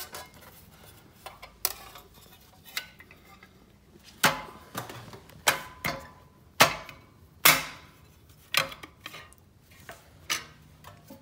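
Metal clanks and knocks as a homemade louver punch-and-die set and a sheet of steel are handled and seated in a press. There are about nine sharp strikes at uneven intervals, the loudest two a little past the middle.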